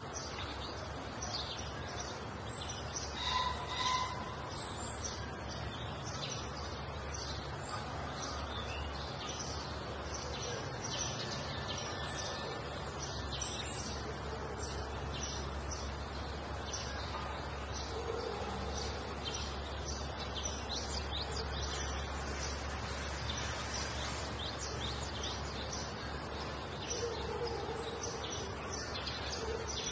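Many birds chirping and calling in the trees over a steady low background noise of open grounds.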